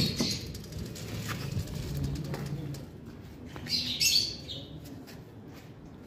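Lovebirds chirping and flapping their wings inside an aviary, with a flurry of chirps about four seconds in. A metal clank from the wire-mesh aviary door right at the start.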